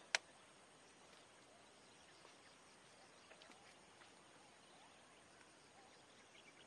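Near silence with faint, scattered bird chirps, and one sharp click just after the start.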